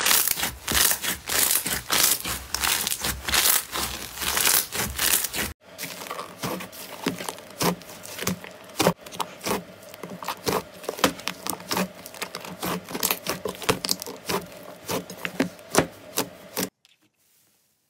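Hands squeezing foam-bead slime, a dense run of small crackles and pops. After a sudden break about five and a half seconds in, hands pull and knead a large mass of thick yellow slime, giving separate squishing pops and clicks. The sound stops about a second before the end.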